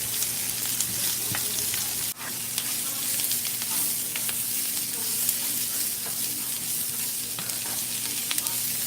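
Sliced peppers and onions sizzling in olive oil in a frying pan, a steady hiss with faint scattered clicks and pops.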